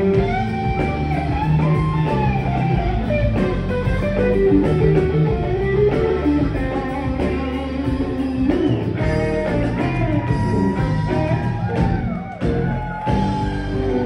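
Live rock band playing, with an electric guitar line bending and weaving over bass, drums and keyboards.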